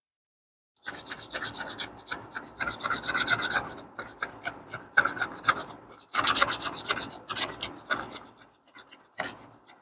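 Quick back-and-forth rasping of the Zippo fire-starting multi-tool's tinder grater against a piece of wood, shaving off fine tinder. The strokes start about a second in, pause briefly twice, and grow lighter and more spaced near the end.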